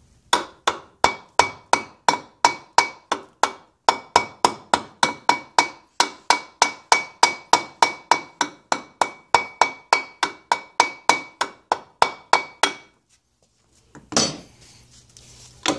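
Repeated mallet blows, about three a second with a short metallic ring on each, tapping at an Evinrude 60 HP outboard's gearcase to knock loose its stuck gear and shifter assembly, which does not budge. The blows stop a few seconds before the end and are followed by a brief clatter.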